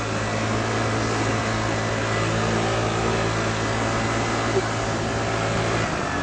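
Piaggio Typhoon scooter engine running at a steady pace under a rush of wind and road noise on the moving scooter; the steady engine hum drops away near the end.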